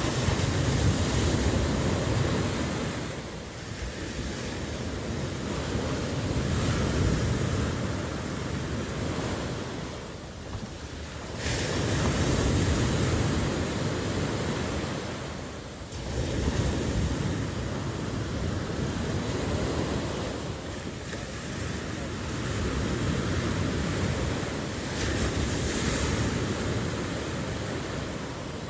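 Ocean surf: waves breaking and washing in one after another, the sound swelling and ebbing every few seconds. A few swells come in suddenly.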